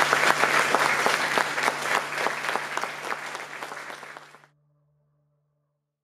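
Audience applauding, fading down and cutting off abruptly about four and a half seconds in, with a low steady tone underneath that lingers until the very end.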